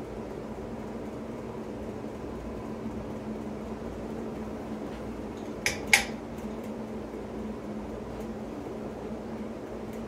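Hampton Bay Sinclair ceiling fan running on high with a steady hum. About six seconds in, two sharp clicks a quarter second apart come from the light kit's pull-chain switch as the lights are switched on.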